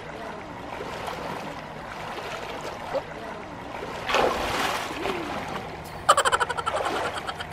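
Swimming-pool water sloshing and splashing as a swimmer paddles and kicks. There is a splash about four seconds in, and a quick flurry of splashes about six seconds in.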